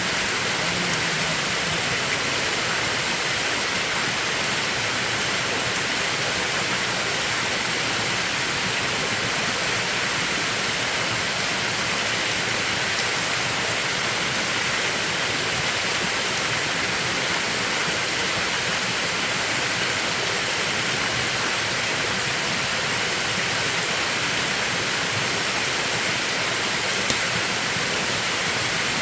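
Mountain valley stream flowing in a steady, even rush of water.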